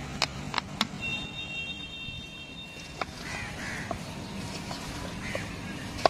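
Light clicks and taps of hands tossing cut fruit with mustard sauce in an aluminium pot, over street background noise. A steady, high two-note tone sounds for about two seconds near the start and stops abruptly with a click.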